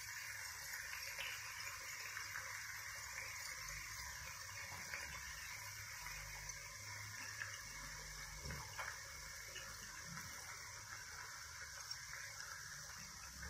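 Burger patties sizzling faintly and steadily on an electric grill plate, with a few light taps as buns are set down on it.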